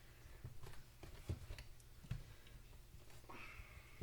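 A few faint, scattered clicks and light knocks of a cordless chainsaw's chain tensioner and bar being adjusted by hand.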